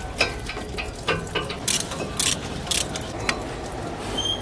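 Irregular metallic clicks and clinks of hand tools working a tight bolt on a pickup's front hub and suspension.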